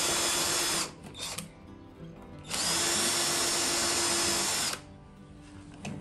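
Cordless drill running in two bursts with a steady high whine, boring pilot holes with a self-centring bit through the screw holes of a mortise lock's faceplate into the wooden door edge. The first run stops a little under a second in, and the second runs for about two seconds from midway.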